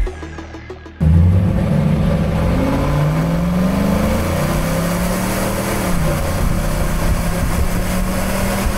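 Exhaust of a 2024 Chevrolet Silverado ZR2's 6.2-litre V8, heard through 4-inch aftermarket exhaust tips. It comes in suddenly about a second in, is revved up and down a few times, then holds at a steady higher speed.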